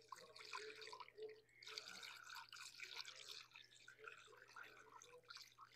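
Faint trickling and dripping of antifreeze running through a funnel into the radiator filler as the cooling system is topped off.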